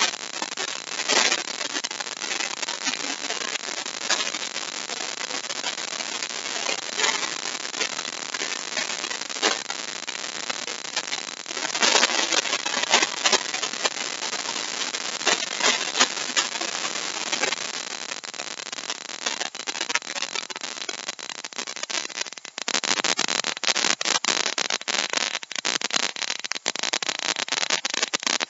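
Compact trim router running and cutting a mortise in wood: a continuous noisy running sound with fine crackling as the bit chips out the wood. It gets louder about three quarters of the way through.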